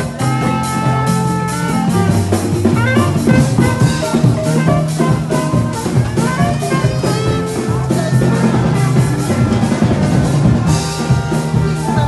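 Background music with a drum kit keeping a steady beat.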